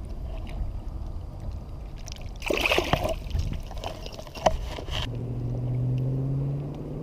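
A splash of water about two and a half seconds in as a largemouth bass is released back into the lake, over a low steady rumble. About five seconds in a steady low motor hum starts.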